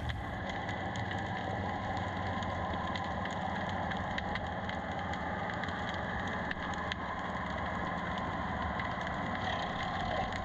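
Steady engine-like drone picked up underwater, holding several even tones without change, with a few faint clicks scattered through it.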